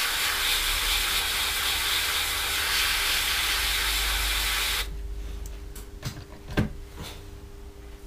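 Airbrush spraying flat black acrylic paint: a steady hiss of air and paint that cuts off suddenly about five seconds in. After it, a few light clicks and one sharper tap as the small masked part is handled.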